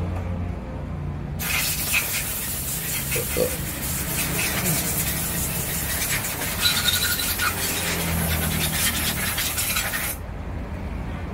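High-pressure spray hissing steadily, starting suddenly about a second and a half in and cutting off near the end, over a low engine rumble.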